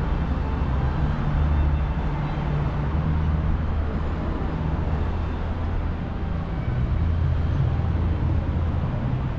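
Steady road traffic on a busy city street: a continuous low rumble of vehicle engines and tyres that swells a little as vehicles pass, with no sudden sounds.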